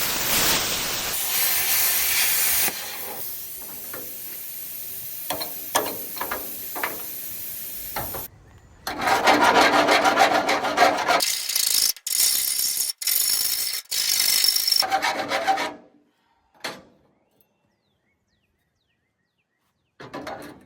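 Budget plasma cutter cutting a hole in sheet steel: a loud hiss in several stretches, cutting out and restarting a few times, with quieter scraping and clicks between. It stops about three-quarters of the way through.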